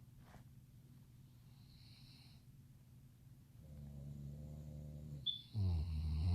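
A man snoring in his sleep: a low snore starting about three and a half seconds in, then a louder snore near the end.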